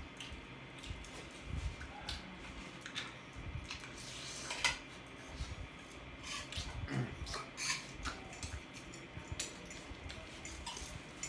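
Quiet mealtime sounds: scattered light clicks and clinks of utensils against a plate, a few seconds apart, the sharpest about halfway through.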